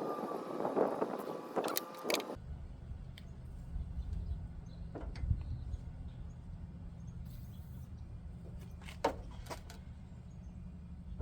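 Scattered clicks and knocks from hand work on an old truck door's hardware, busier in the first couple of seconds, over a steady low hum.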